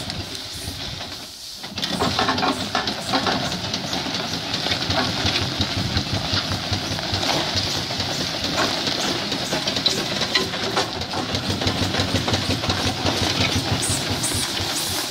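Fowler steam roller running as it drives forward: a fast, even run of exhaust beats with mechanical clatter, getting louder about two seconds in.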